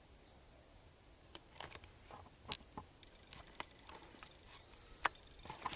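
Dry, dead bracken and grass crunching and snapping underfoot: faint, irregular crackles that start about a second and a half in, with a few sharper snaps.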